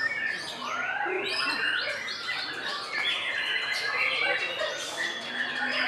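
White-rumped shama (murai batu) singing: a dense, unbroken run of varied whistles and chirps, many notes sliding up or down, with a longer held whistle about halfway through.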